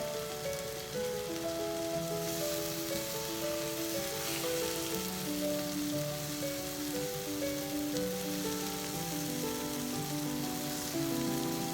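Food sizzling in a frying pan, a steady hiss, under gentle background music with a stepping melody.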